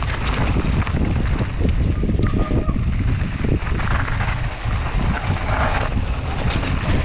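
Wind buffeting the microphone of a mountain bike's camera while riding, with the bike rattling and knocking over rough singletrack.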